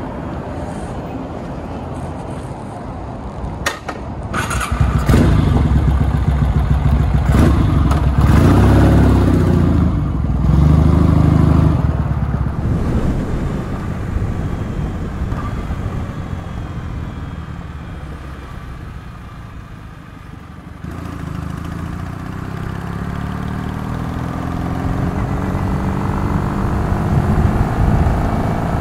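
Motorcycle engine heard from the rider's seat: running low at first, then revved hard and climbing in pitch as the bike pulls away and accelerates. It eases off and fades for several seconds, then rises again under acceleration near the end.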